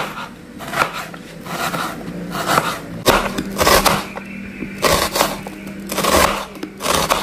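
Kitchen knife slicing an onion thinly on a plastic cutting board: short crisp cuts, each ending in a tap of the blade on the board, about one a second.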